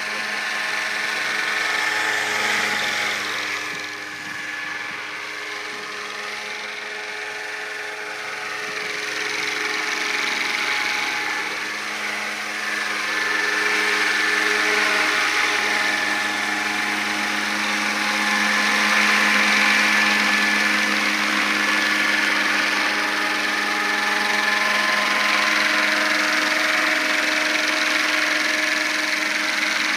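Radio-controlled AS350 scale model helicopter in flight, its motor and rotors making a steady whine. The pitch dips briefly about ten seconds in, and the sound grows louder from about halfway as the helicopter comes closer.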